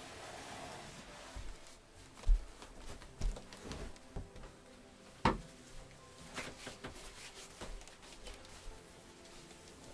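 Scattered light knocks and thumps of things being handled and moved about in a small room. The loudest thump comes about two seconds in and a sharp knock about five seconds in.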